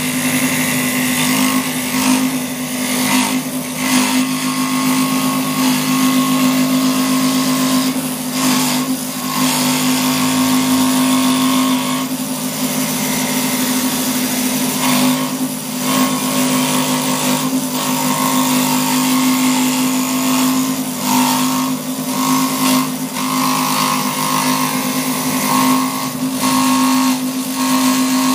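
Electric scroll saw running with a steady hum, its reciprocating blade cutting through a mulberry wood board; the cutting noise swells and eases as the board is fed and turned.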